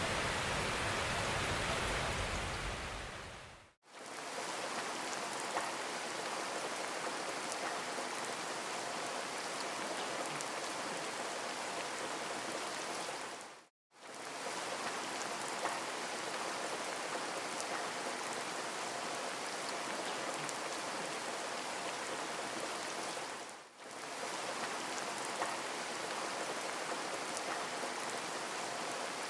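Steady rushing water noise, an even hiss with no speech, cut by three brief dropouts between clips; the first few seconds carry a deeper rumble than the rest.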